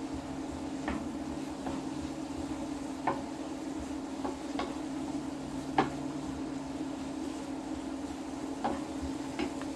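Diced courgette, carrot and onion sizzling gently in a frying pan while a wooden spatula stirs them, sharp taps of the spatula on the pan now and then, over a steady low hum.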